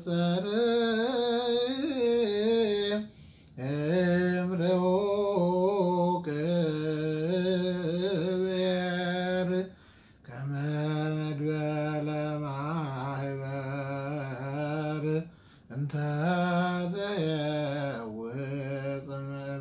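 A man's solo voice chanting an Ethiopian Orthodox Abun hymn in Ge'ez zema style, unaccompanied. He draws single syllables out into long melismatic notes with wavering ornaments, and breaks off briefly three times for breath.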